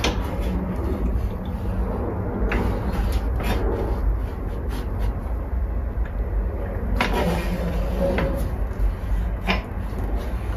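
Sheet-metal gutter piece being handled and worked: a few separate knocks and clanks, the longest about seven seconds in, over a steady low rumble.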